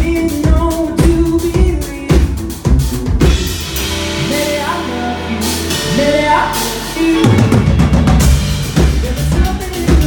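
Live pop band playing with no vocals: a steady drum-kit beat with bass and keyboards. About three seconds in the drums drop out, leaving held chords, and the full beat comes back about seven seconds in.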